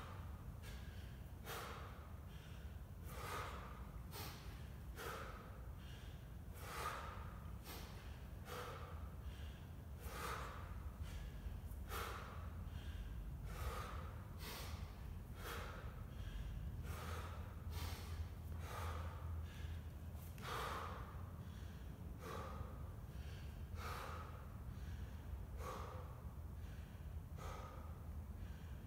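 A man's forceful, rhythmic breathing, a short sharp breath about once a second, from the effort of repeated one-arm snatches with a 24 kg kettlebell.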